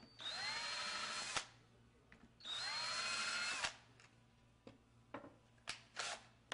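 Power drill with a self-centering Vix bit boring two pilot holes through a cabinet hinge's screw holes into the door. There are two runs of about a second each, and the motor's whine rises as it spins up. A few light clicks follow.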